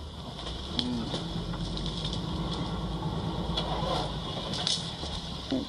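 Safari vehicle's engine running as it drives through the bush, with scattered knocks and rattles over the steady low rumble.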